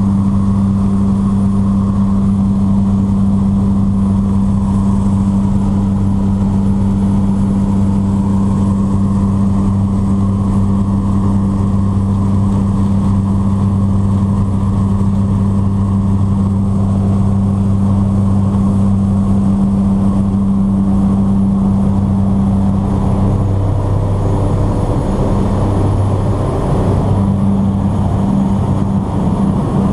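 Loud, steady drone of a de Havilland DHC-3 Otter floatplane's engine and propeller at takeoff power, heard from inside the cabin during the takeoff run and climb-out. Near the end the main tone wavers and breaks up.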